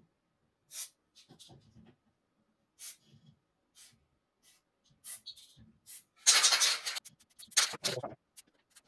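Aerosol can of white grease spraying onto the gear of a car window regulator motor: one short hiss about six seconds in and another just after, with scattered light clicks before them.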